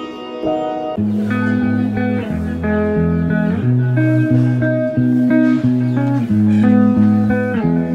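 Background music: a plucked-string melody over a bass line that comes in about a second in.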